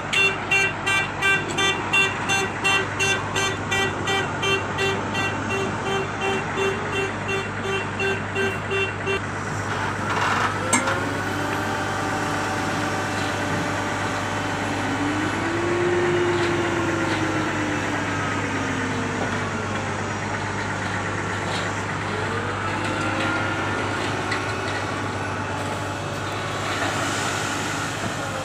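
A vehicle horn beeping rapidly, about two to three times a second, for the first nine or so seconds. After a click, heavy machinery engine running steadily, its pitch slowly rising and falling.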